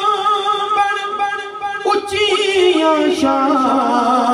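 A man singing a Punjabi devotional kalam unaccompanied into a microphone, drawing out long, wavering notes. There is a short break about two seconds in, then a new ornamented phrase whose pitch falls.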